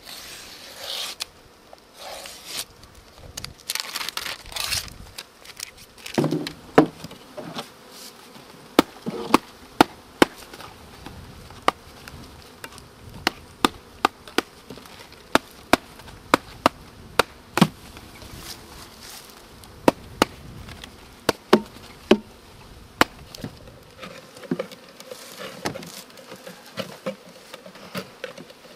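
Honeybees from opened package boxes buzzing, with many sharp clicks and light knocks scattered through, the loudest about seven seconds in.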